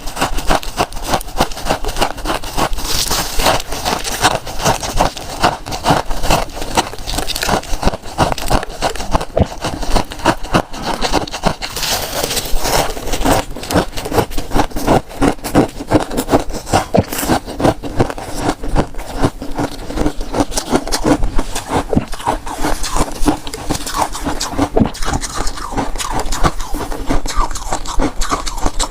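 Freezer frost crunching and scraping close to the microphone: a dense, unbroken run of sharp crisp crunches as it is bitten, chewed or scraped loose.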